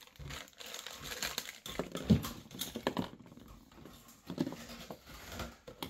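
Small plastic bags of pump fittings crinkling and hard plastic parts clicking and tapping as they are handled, with one louder knock about two seconds in. The rustling is densest in the first few seconds and thins to scattered clicks.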